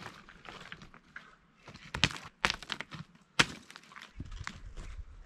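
Several sharp knocks and clacks of hard objects, the loudest about two seconds and three and a half seconds in, with crunching and shuffling in between.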